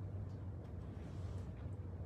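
Steady low hum of room background noise, with a few faint soft ticks.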